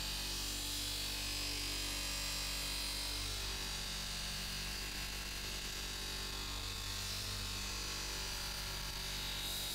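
Electric bench polisher running steadily, with a steel hammer head pressed against its spinning buffing wheel: a constant motor hum with the rubbing of metal on the buff.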